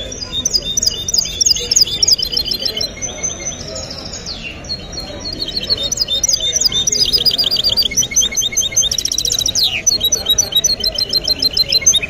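Goldfinch–canary hybrid (mule) singing in its cage: a continuous run of quick twittering phrases and trills, with a very fast rattling trill about nine seconds in. The listener judges the song free of faults.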